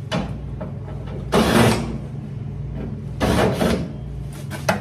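Parts of a dryer cabinet being handled during disassembly: two short scraping rubs about a second apart, a sharp click near the end, and a steady low hum underneath.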